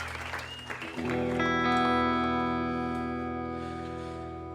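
Electric guitar with effects strikes a chord about a second in and lets it ring out, slowly fading.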